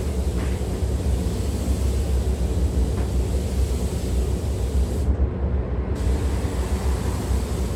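Steady low rumble and rush of moving air in a paint spray booth, the booth's ventilation running.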